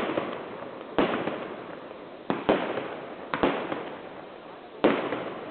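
Fireworks display: a string of about seven sharp bangs, roughly one a second with some in quick pairs, each trailing off in a rolling echo.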